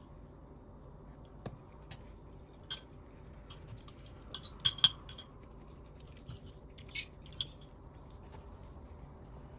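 Fork and knife clinking against a ceramic plate while cutting a slice of pizza: scattered light clicks, with a cluster of them about halfway through.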